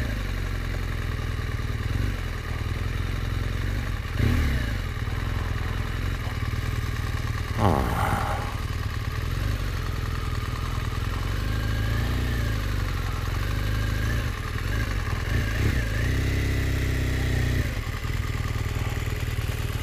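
BMW R1200 GS flat-twin engine running at low speed as the motorcycle rolls slowly along, then idling once the bike stops near the end. A short, louder falling sweep comes about eight seconds in.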